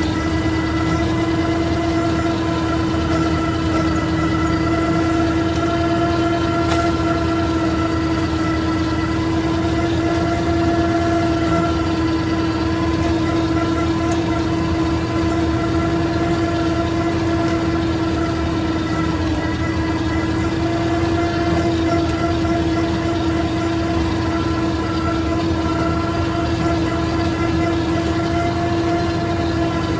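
IMT 533 tractor running steadily under load, driving a Panex AGM flail mulcher that is cutting grass. A constant whine at one pitch, with overtones, sits over the engine's rumble.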